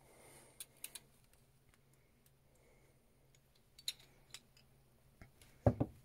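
Small metal parts of a Nissan 300ZX ignition lock cylinder and its housing clicking and clinking as they are handled, a few scattered ticks, then a louder knock near the end.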